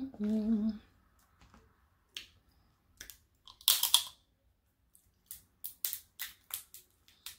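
Crab shell being cracked open by hand at close range: a few sharp cracks, a louder crunching crack about halfway through, then a quick run of small snaps and clicks about three a second near the end.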